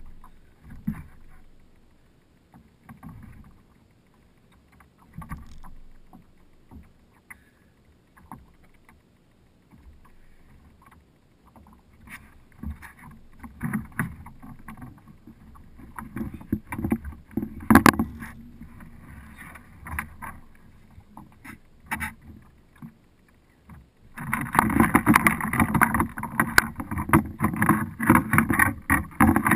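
Scattered knocks, thumps and rubbing on a Hobie Pro Angler kayak's plastic hull as a landed wahoo is handled, with one sharp knock about 18 seconds in. About 24 seconds in, a loud run of rapid rattling and thumping starts and lasts about five seconds.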